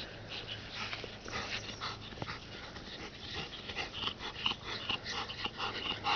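Two dogs, a black Labrador and a Jack Russell terrier, playing chase over a stick on grass. Many short, quiet, irregular dog sounds follow one another throughout.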